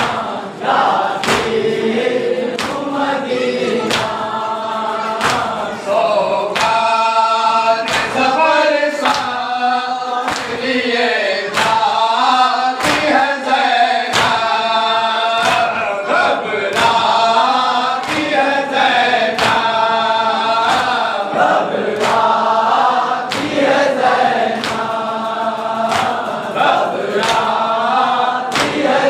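A group of men chanting a Shia noha, a mourning lament, in unison. A steady beat of hands striking chests (matam) keeps time with the chant.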